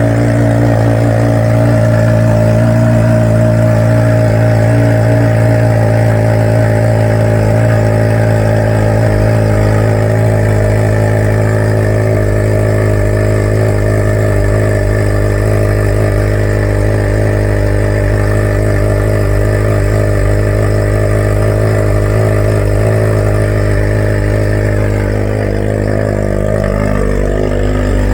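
Suzuki GSX-S1000 inline-four engine idling steadily through a freshly fitted Black Widow full aftermarket exhaust system with the baffle in, a loud, deep, even exhaust note.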